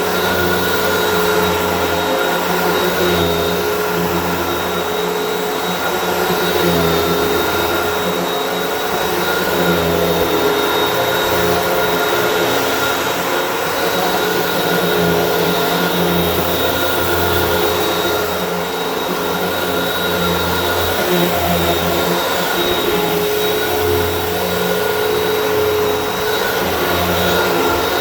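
Hoover WindTunnel upright vacuum running on carpet, a steady motor whine over the rush of air, with a lower hum that swells and fades every few seconds as the load changes.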